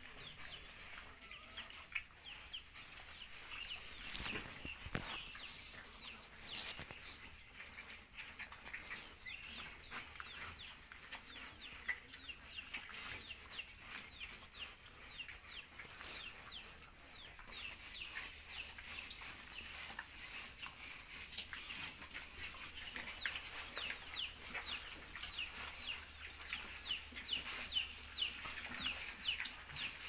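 Poultry calling in the background: many short, high, falling peeps that come thick and fast in the second half, with a few faint knocks.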